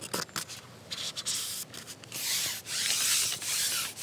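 Long carbon fishing pole being pushed out over the water, rubbing as it slides. A few light clicks at the start, then from about halfway through a rough rubbing sound that comes in repeated swells.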